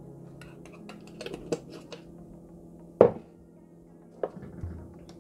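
Kitchen utensils clinking and knocking: a metal measuring spoon and seasoning jars handled on a stone countertop. There is a run of light clicks, then one loud sharp knock about three seconds in and two softer ones near the end, over faint background music.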